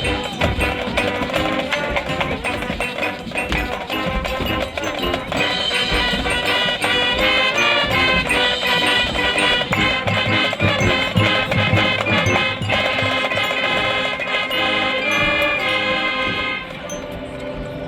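High school marching band playing a show piece: many pitched instruments in full chords over drums. It gets quieter about 17 seconds in.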